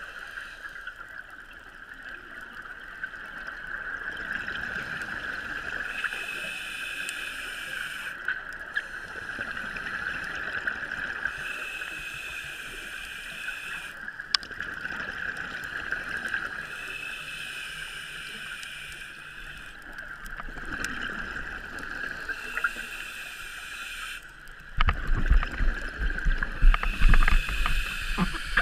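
Underwater sound through a camera housing: a scuba diver's regulator breathing in a slow cycle, a hiss swelling and fading about every five seconds, over a steady high whine. Near the end, a loud low rumbling.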